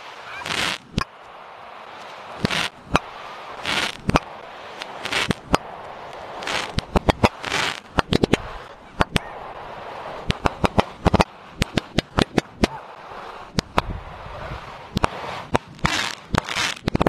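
Fireworks going off: a rapid, irregular series of sharp bangs and crackles, with hissing swells between them, thickest in the second half.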